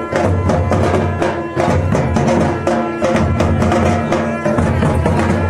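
Konkani festival band of large dhol drums beaten in a steady, driving beat, with a sanai (shehnai) holding a reedy melody over it: traditional music for a palkhi dance.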